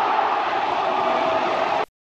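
Football crowd shouting and cheering, a loud steady din of many voices, reacting to an attack on goal. It cuts off abruptly near the end.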